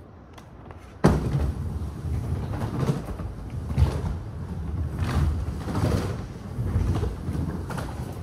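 Skateboard wheels rolling on a wooden skate bowl. A sudden loud thud about a second in, then a steady low rumble that swells and eases about once a second as the board carves and pumps through the transitions.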